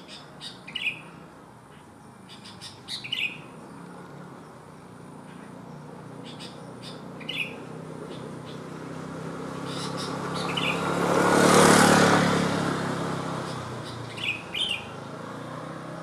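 Sooty-headed bulbul giving short chirping calls every few seconds, about five in all. A passing vehicle swells and fades in the background and is the loudest sound about three quarters of the way through.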